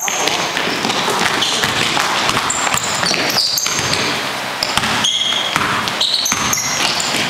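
Basketball bouncing on a gym floor as a player dribbles, with many short, high-pitched sneaker squeaks from players moving around the court.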